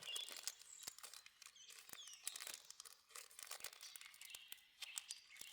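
Faint crinkling and rustling of plastic packaging being handled, a dense run of small crackles and clicks.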